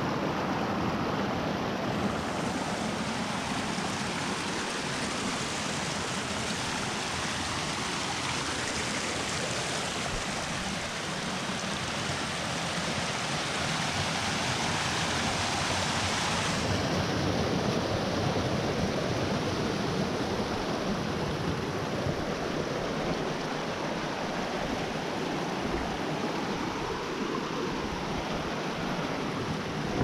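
Small mountain stream rushing and splashing over mossy rocks in little cascades, a steady unbroken rush of water.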